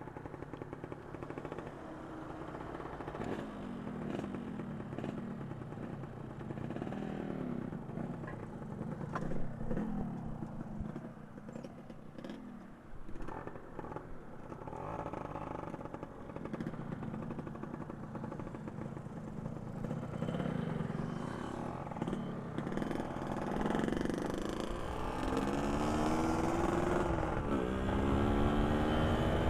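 Two-stroke motorcycle engine running at low revs, then revving up with a rising pitch several times in the last few seconds as the bike accelerates.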